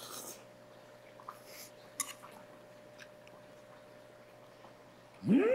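A man eating braised pale chub from a plate: a short slurp at the start, then faint clicks of chopsticks and chewing over a low steady hum. Near the end comes a loud rising vocal 'mmm' of relish, held for about a second.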